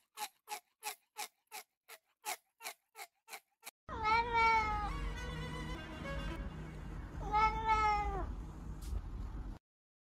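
A cat chewing, with quick sharp smacks about three times a second. Then a cat meows twice in long drawn-out calls that fall in pitch, captioned as "Mama", over a low steady hum.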